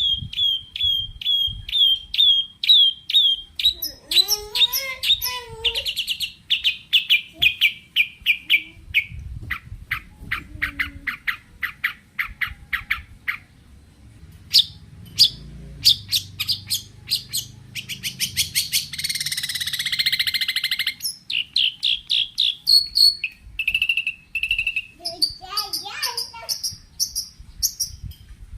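Long-tailed shrike (cendet) singing a loud, varied, rapid song. It strings together runs of repeated high downslurred notes, fast clicky trills and a harsh buzzy phrase, with a few lower wavering calls between, the mixed 'full isian' song of an in-form bird.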